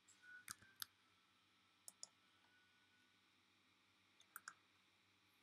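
Faint computer mouse clicks: three quick pairs of clicks spread over a few seconds.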